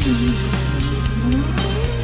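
Background rock music: a wavering guitar melody over held bass notes.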